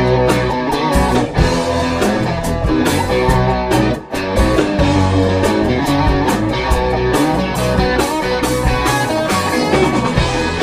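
Instrumental rock soundtrack music with electric guitar over a steady beat, briefly dropping out about four seconds in.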